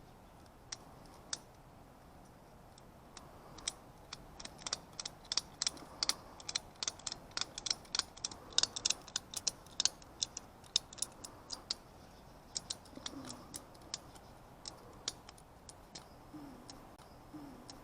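Ratchet strap being cranked tight: the ratchet handle clicking in an uneven run of several sharp clicks a second, thickest in the middle and thinning out near the end.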